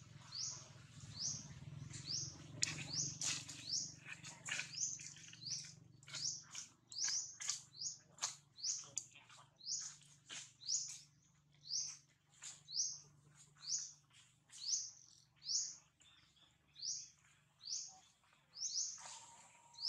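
A bird calling: a short, high, falling chirp repeated steadily, about one to two a second, with sharp clicks among the chirps in the first half.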